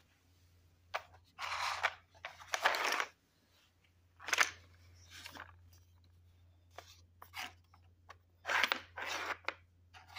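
A Nina Ottosson by Petstages plastic treat puzzle being handled: its leaf covers and ladybird pieces are slid and knocked, giving a series of short plastic scraping and rattling sounds with a few sharp clicks.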